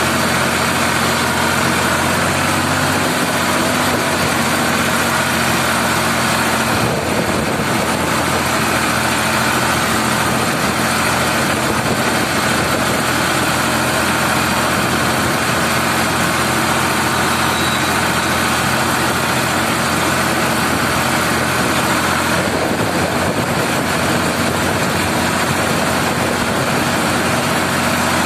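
Ford 3600 tractor's three-cylinder engine running steadily at full road speed, heard from the driver's seat close to the exhaust stack.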